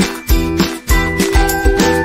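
Background music with a steady beat, about two strokes a second, under a high held melody line.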